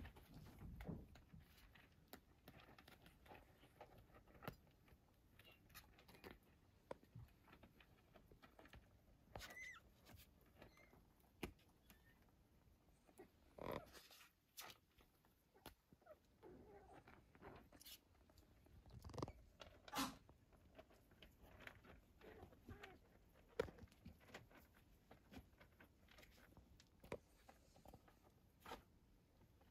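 Near silence, with faint scattered small clicks and rustles throughout.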